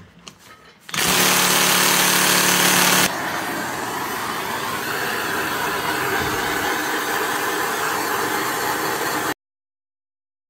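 About a second in, a loud steady rushing noise with a hum in it starts. After two seconds it drops to the even hiss of a handheld blowtorch flame heating a seized Eaton supercharger pulley to free it from its shaft. The sound cuts off abruptly near the end.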